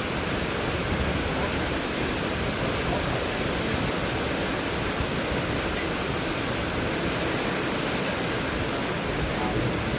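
Heavy storm rain falling in a steady, even rush.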